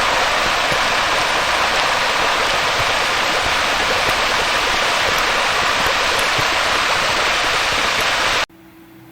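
Loud, steady rushing hiss of noise that cuts off suddenly near the end, leaving quiet room tone with a faint hum.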